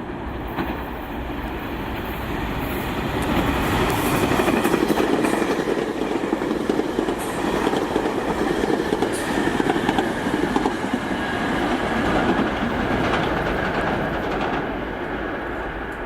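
SEPTA Regional Rail electric train passing: the rail noise builds over the first few seconds, holds at its loudest through the middle, and fades away near the end.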